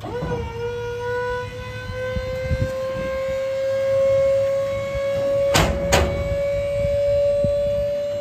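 Dump trailer's electric hydraulic pump, worked by remote, running with a steady whine that climbs slowly in pitch as it raises the bed. Two sharp knocks come a little past halfway.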